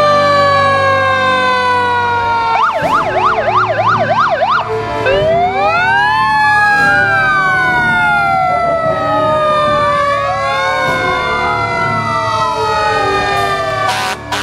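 Several emergency-vehicle sirens sounding together. Slow falling wails, then a rapid yelp for about two seconds, then more sirens winding up and down over one another from about five seconds in.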